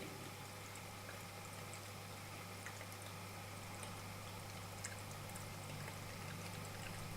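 Small decorative tabletop fountain running: water pouring from a jug-shaped spout and trickling, with faint scattered drips and a steady low hum underneath.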